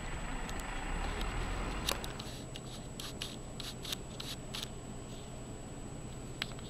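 Rain falling on wet pavement as a steady hiss. About two seconds in it turns quieter, and a quick run of sharp ticks follows, with one more tick near the end.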